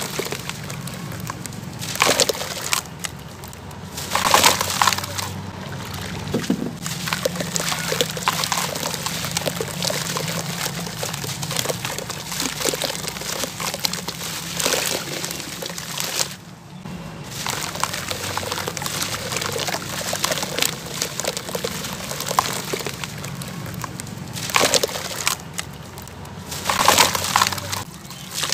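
Wet sand-cement chunks being crumbled and squeezed by hand into a basin of foamy water: gritty crunching and crumbling mixed with water sloshing and dripping, in irregular crackles with a few louder handfuls.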